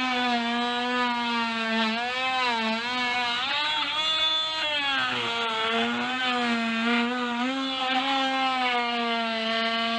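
A power tool's motor running continuously with a steady hum, its pitch sagging and recovering a few times.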